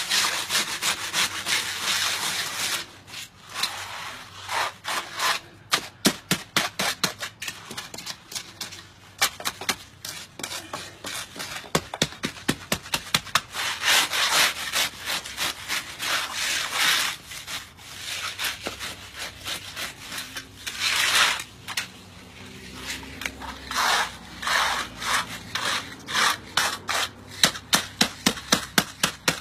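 Concrete hand float scrubbed hard back and forth over rough, gritty concrete, in runs of quick scraping strokes, several a second, with short pauses between the runs. It is heavy rubbing to work a rough, uneven patch of the slab smooth.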